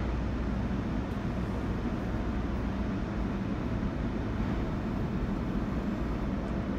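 Automatic tunnel car wash heard from inside the car: a steady low rumble of the wash machinery with water spraying and running over the windshield.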